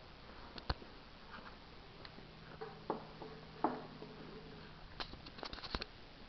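Scattered clicks and taps from a handheld camera being jostled and handled, with a faint low hum in the middle and a quick cluster of clicks near the end.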